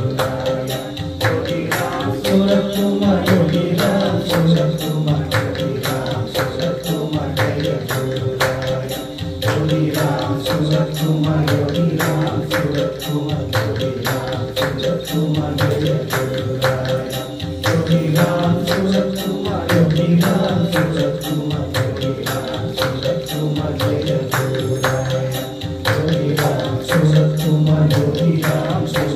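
Devotional name-chanting music: a sung phrase recurring every few seconds over a steady, quick percussion beat and a held drone tone.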